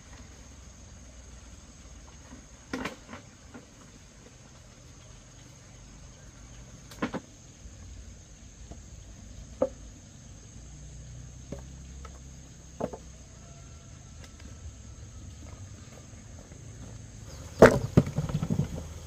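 Old wooden poles knocking against each other as they are picked up and dropped onto a log pile: a few single knocks spread apart, then a louder clatter of several near the end. A steady high insect drone runs underneath.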